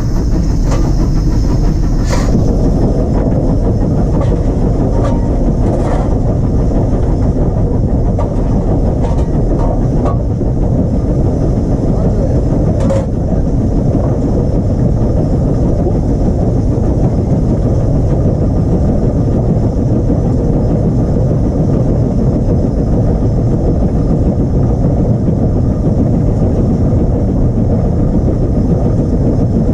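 Taff Vale Railway No.85, an 0-6-2 tank steam locomotive, running along the line, heard from a camera on the engine itself: a loud, steady rush of running noise with no clear exhaust beat. A few sharp knocks come in the first dozen seconds.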